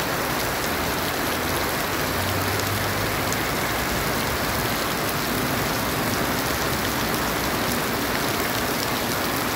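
Heavy rain falling steadily on a paved street and sidewalk, an even hiss with a few nearby drops ticking.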